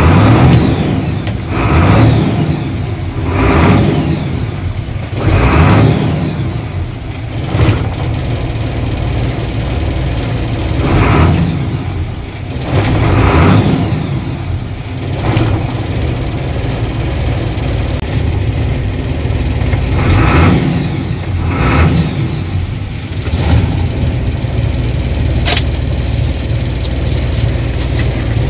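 30-plus-year-old Hino Ranger 5-ton truck's diesel engine, heard from inside the cab, running with repeated throttle blips. About five quick revs come in the first eight seconds, then a few more spaced out between stretches of steady idle. A single sharp click comes about three-quarters of the way through.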